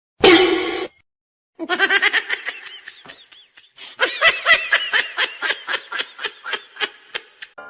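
A short loud cry, then hearty laughter in quick rhythmic bursts, several a second.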